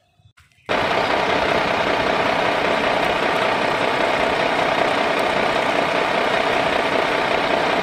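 A steady engine-idling sound starts abruptly under a second in and runs at an even level. It is an engine sound effect laid over a toy tractor that is being pushed by hand.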